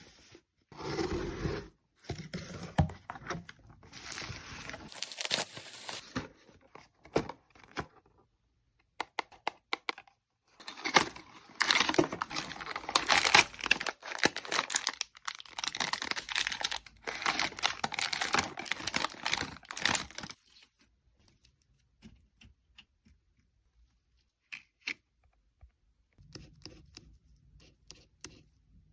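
Snack packaging being torn open and crinkled by hand, in irregular bursts of rustling and sharp crackles, dying down to a few faint clicks for the last several seconds.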